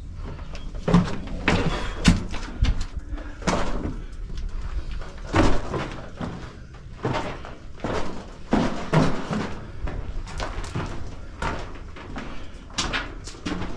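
Footsteps scuffing and crunching on rough rock and grit inside a passage dug into the rock, an irregular step every half second to a second, each with a short echo.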